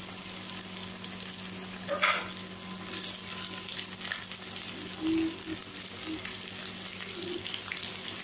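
Sliced onions sizzling in hot oil in a kadai, a steady frying hiss with a low hum underneath. A brief louder knock comes about two seconds in.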